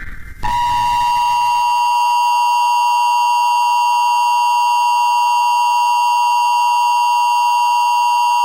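Emergency Alert System attention signal: a loud, steady two-tone beep sounding without a break, starting about half a second in.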